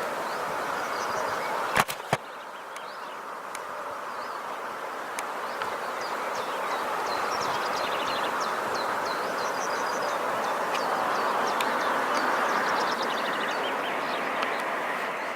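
The flooded Glomma river rushing steadily, with short high chirps over it and two sharp clicks about two seconds in.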